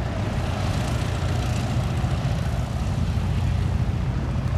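Single-engine Cessna's piston engine and propeller running steadily at low taxi power, an even low drone.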